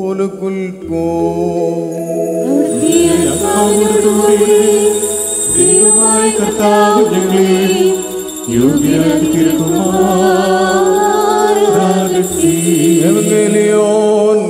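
Syriac Orthodox liturgical chant sung with sustained instrumental accompaniment, with a bright high jingle of small bells through the middle.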